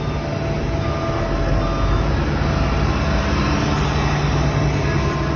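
Heavy road-construction vehicle engine running steadily with a deep hum. For the first couple of seconds a reversing alarm beeps at an even pace.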